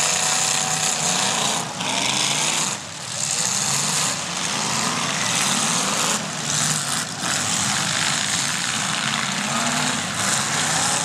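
Several demolition derby cars' engines running loud and continuously together, their pitch rising and falling as they rev, over a dense exhaust roar.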